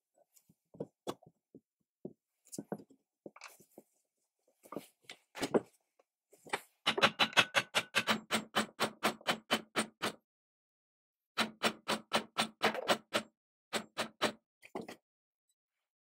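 Scattered light knocks and clicks of metal parts being handled, then two runs of quick, evenly spaced light hammer taps on metal, about six a second and each lasting a couple of seconds, with a slight ring. A few last knocks follow near the end.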